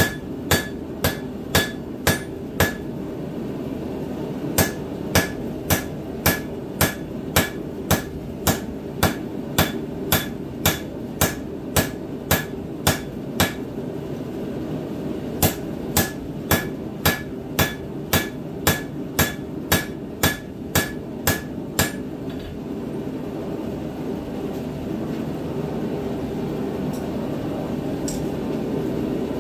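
A hand hammer strikes hot steel on an anvil while forging a tomahawk head from a black-powder rifle barrel. The blows come about two a second, each with a short ring, in three runs broken by brief pauses about 3 and 14 seconds in. The hammering stops about 22 seconds in, leaving a steady low hum.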